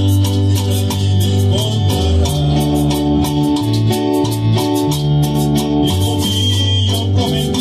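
Live band music: an electric bass guitar plays a moving bass line under keyboard chords, with congas and a steady run of quick high ticks in the percussion, about four to five a second.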